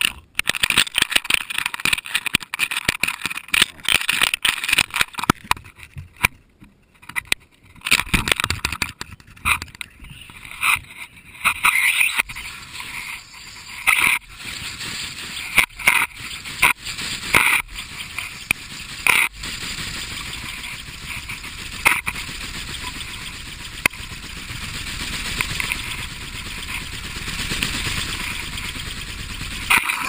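Handling noise from a small action camera being jostled and tumbled about: irregular knocks, scrapes and rubbing against its housing, going on throughout, with a rougher, steadier rush in the second half.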